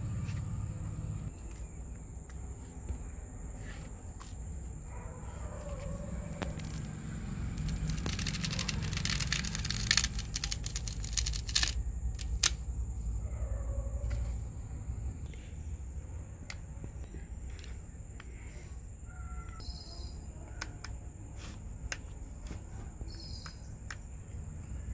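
A screwdriver prying the fabric grille and its plastic clips off a portable Bluetooth speaker: clicks and scraping, with a loud stretch of crackling and tearing as the grille is peeled away about eight to twelve seconds in. A few short bird chirps come near the end.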